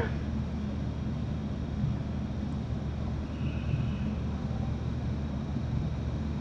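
A steady low hum under a light hiss, with a faint, brief high buzz about halfway through.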